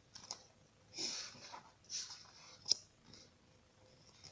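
Pages of a paperback book being turned by hand: soft paper rustles about a second in and again at two seconds, then a sharp papery snap.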